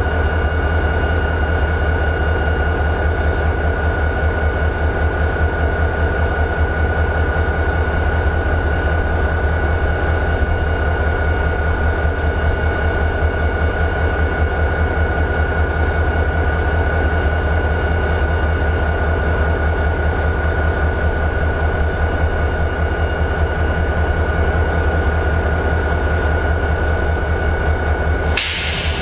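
EMD 645 turbocharged V16 diesel of a GP40-2 locomotive idling: a steady, fast-pulsing low rumble with a steady high whine over it. A brief burst of hissing noise comes near the end.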